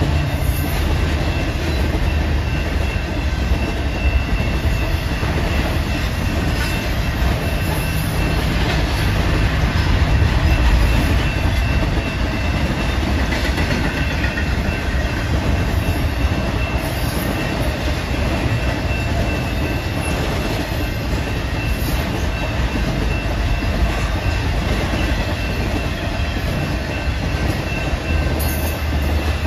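BNSF intermodal freight train's well cars, loaded with trailers and double-stacked containers, rolling past on steel wheels: a steady heavy rumble of wheels on the rails.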